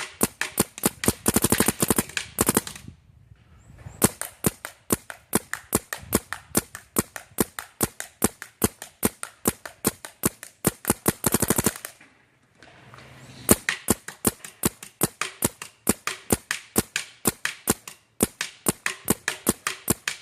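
Planet Eclipse Geo 3.1 electronic paintball marker firing through a Dye carbon fiber Boomstick barrel: strings of sharp shots, a few a second, with faster bursts about two seconds in and just before the twelve-second mark, and two short breaks in the firing.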